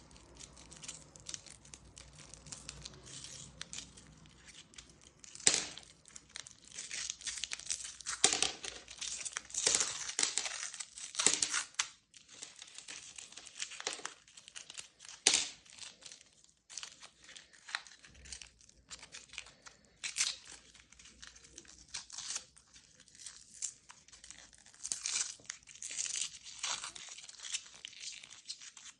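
Plastic candy wrappers being crinkled and torn open by hand, in irregular rustles broken by sharp crackling snaps.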